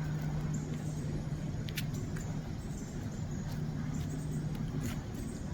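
Steady outdoor background: an even rushing noise with a constant low hum, broken by a few faint clicks.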